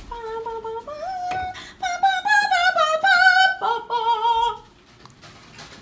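A high voice singing a short wordless melody, holding notes with some vibrato, and stopping about four and a half seconds in.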